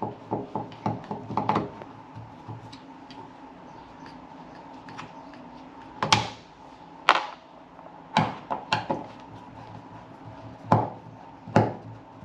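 Hand tools and hardware being handled during wiring work: small clicks in the first couple of seconds, then six sharp knocks and clacks spread through the second half. A faint steady hum runs underneath.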